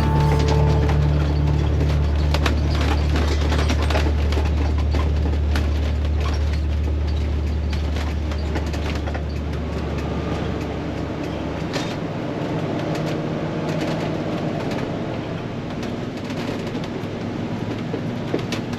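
Class A motorhome on the move, heard from inside the cab: steady engine and road drone with a strong low hum. The low hum drops away about two thirds of the way through as the motorhome slows.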